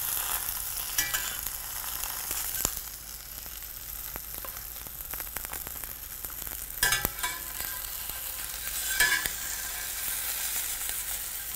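Egg, turkey and cheese sizzling in a hot Stargazer cast iron skillet. A metal slotted spatula scrapes and knocks against the pan a few times, loudest about seven and nine seconds in.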